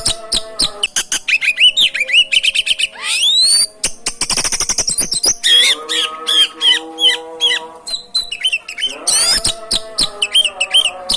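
Oriental magpie-robin (kacer) singing hard: a fast, varied run of whistles, chirps and squawky notes, with a very fast rattling trill about four seconds in. Steady low tones sit underneath for a couple of seconds after the trill.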